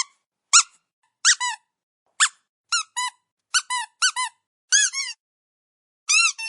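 Squeaky dog toy squeezed again and again, about nine times at an uneven pace. Each squeeze gives a short high squeak, often followed at once by a second, lower squeak.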